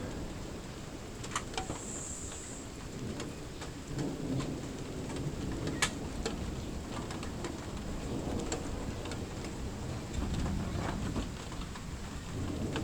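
Thunderstorm: steady rain with a low rumble of thunder running underneath, and scattered sharp taps of drops, one louder tap about six seconds in.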